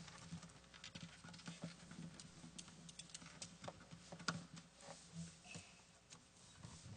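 Near silence: room tone with faint, scattered small clicks and rustles over a low, steady hum.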